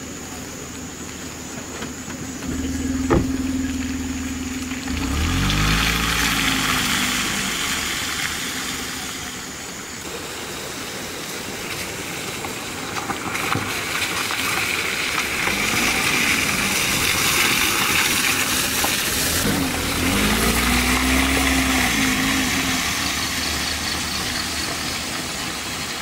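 A vehicle engine running, its pitch climbing twice as it speeds up: about five seconds in and again near twenty seconds. A steady hiss of wind or road noise runs under it for long stretches.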